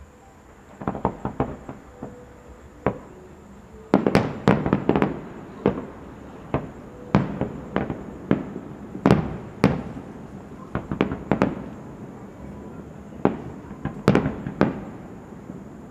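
Fireworks display: aerial shells launching and bursting in sharp, irregular bangs, a few at first and then a dense salvo about four seconds in, with bangs following every half second or so after that.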